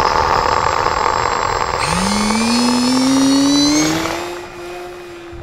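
An RC plane's electric motors whine as the plane's Magnus-rotor buckets spin and its propeller turns. About two seconds in, the motor throttles up with a rising whine, and the sound fades after about four seconds as the plane moves away.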